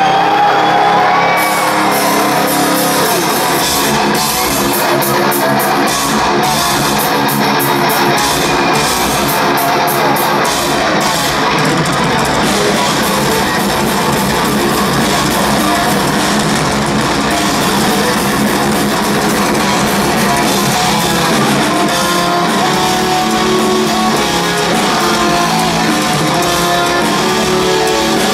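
Heavy metal band playing live: distorted electric guitars over bass and a drum kit, loud and continuous.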